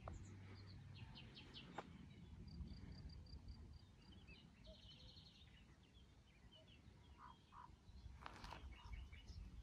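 Faint birdsong outdoors: scattered short high chirps and a quick run of repeated notes, over a steady low rumble.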